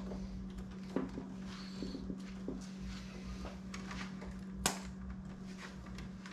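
Light clicks and knocks of a power cord and its plug being handled at a table saw, with one sharp click about four and a half seconds in, over a steady low hum.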